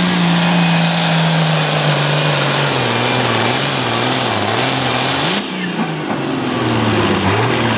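The turbocharged 466-cubic-inch diesel of an International Harvester hot farm pulling tractor runs at full throttle under sled load. Its pitch sinks steadily as the engine lugs down. Near the end a high whistle falls in pitch.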